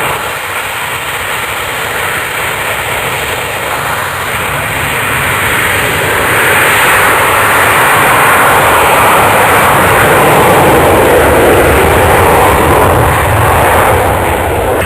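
A fixed-wing aircraft flying past: a loud, even engine rush that builds to its loudest about two-thirds of the way through and falls away near the end.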